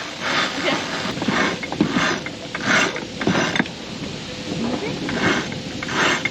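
Sailboat sheet lines running through blocks and around a winch while the crew hauls during a tack: a series of rope swishes and scraping pulls, about one or two a second, with ratcheting winch clicks.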